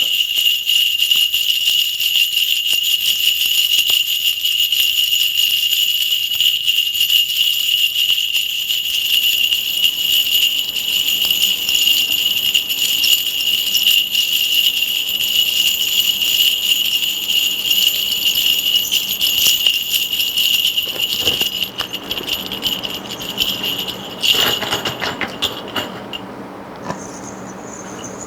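A cluster of small metal bells, likely a Korean shaman's bell rattle, is shaken rapidly and without a break in divination. The jingling stops about 26 seconds in.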